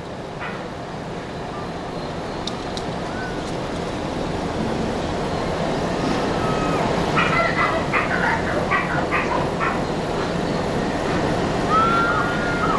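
Dogs giving short yips and barks from about halfway through, with a brief whine near the end, over a steady rushing background noise that slowly grows louder.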